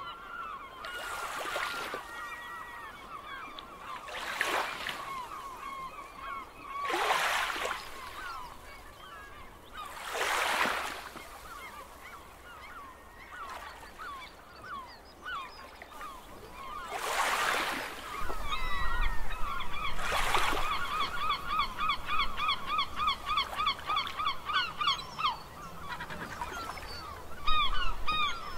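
A flock of birds calling over and over in short, goose-like calls, getting denser and louder about two-thirds of the way in. Waves wash ashore in a surge every few seconds.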